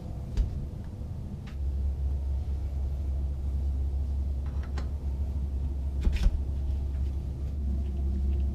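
A steady low rumble, with a few light clicks and taps from headset parts being handled as the dust cap goes on.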